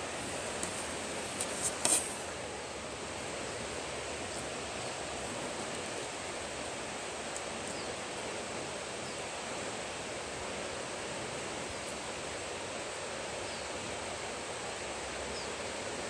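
A steady hiss of background noise, with a quick cluster of sharp clicks about one and a half to two seconds in.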